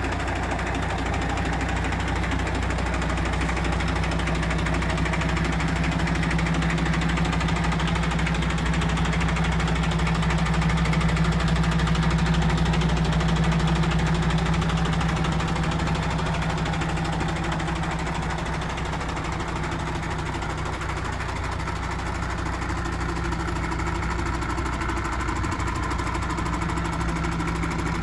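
MAN TGX 26.440 tractor unit's straight-six diesel engine idling steadily, a low even hum that grows slightly louder around the middle.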